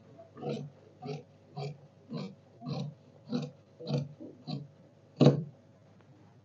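Tailoring scissors snipping through folded printed fabric along a marked line, a steady run of crunching cuts at about two a second, with one louder snip near the end.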